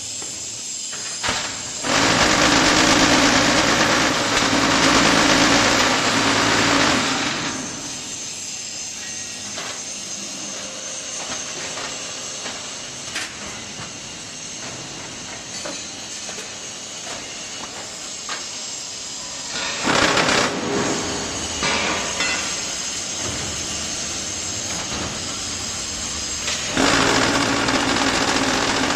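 QTJ4-25D concrete block machine running through its moulding cycle. Its vibrating table rattles loudly for about five seconds near the start and again near the end. Between these the machine runs more quietly, with scattered clanks.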